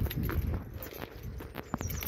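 Footsteps on a block-paved path, a few irregular scuffing knocks, over a low rumble of wind or handling noise.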